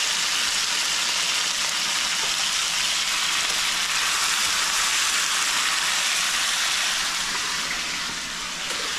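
Raw chicken pieces sizzling steadily in hot oil in a frying pan over sautéed garlic and onions, easing a little near the end.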